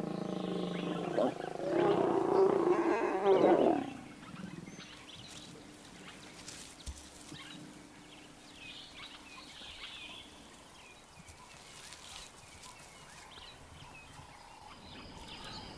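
A mating pair of African lions growling loudly for about four seconds.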